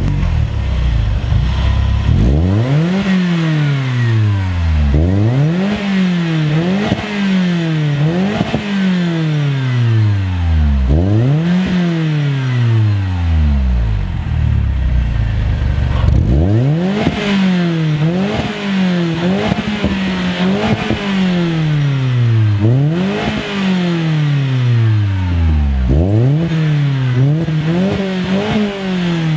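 Mini Cooper R56 engine exhausting through a Scorpion resonated cat-back exhaust, parked and revved over and over: each rev climbs in pitch and falls straight back. It idles briefly before the first rev and again for a couple of seconds in the middle.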